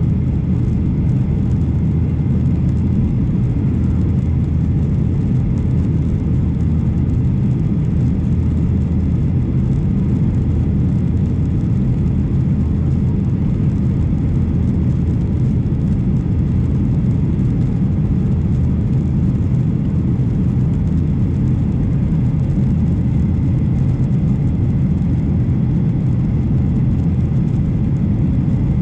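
Boeing 737 jet engines and airflow: a steady, loud, low noise with a faint hum, unchanging throughout.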